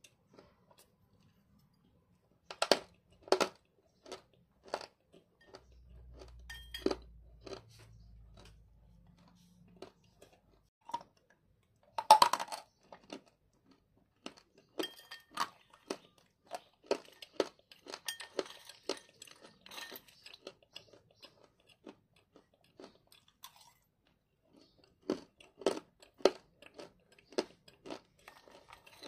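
Close-up crunching and chewing of hard clay chunks, a long run of sharp, irregular crunches with a loud burst about twelve seconds in. Now and then a metal spoon clinks against the bowl.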